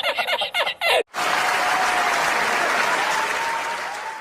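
Voices and laughter for about the first second, then, after a sudden cut, steady crowd applause that eases off near the end.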